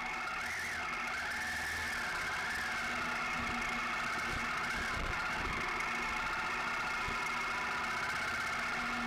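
Honda Varadero 1000's V-twin engine running at low speed, its pitch rising and falling with the throttle in the first few seconds, then holding steady. A few low thumps come around the middle.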